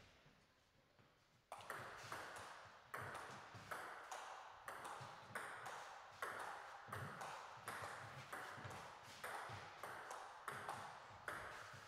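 Table tennis rally: the ball clicking sharply off the bats and bouncing on the table about twice a second, starting about a second and a half in after a quiet moment.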